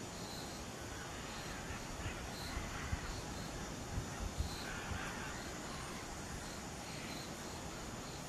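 Outdoor forest ambience: a few soft, harsh bird calls over a faint high chirp that repeats about twice a second, with several low thumps near the middle.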